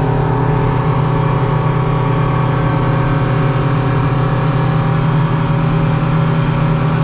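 Boat engine running steadily at constant speed, a loud even drone with a hiss of wind and water over it.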